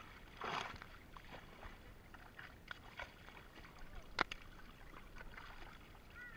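Carp thrashing and splashing in a seine net in shallow pond water. A splash comes about half a second in, and scattered sloshes and short sharp slaps follow, the sharpest a little past four seconds.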